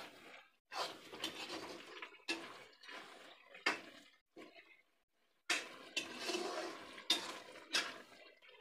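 A metal spoon stirring and scraping a thick, wet potato and sweet gourd curry around a black kadai, in a series of wet scraping strokes with short breaks between them.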